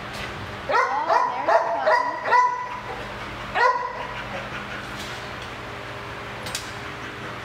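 A dog in a shelter kennel giving high yipping barks: a quick run of about five, then one more about a second later.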